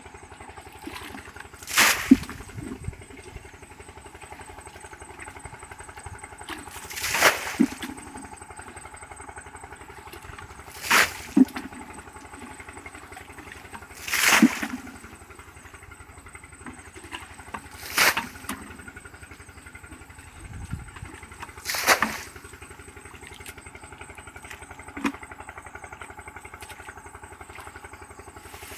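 A small engine running steadily in the background, with six short, loud bursts of rushing noise coming every three to four seconds.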